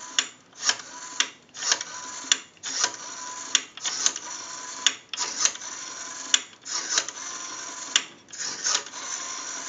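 Rotary dial of a Western Electric 233G three-slot payphone dialed through several digits in a row. After each wind-up the dial spins back with a whir and a run of clicks as it pulses out the digit, and the returns take a little longer as the digits go higher.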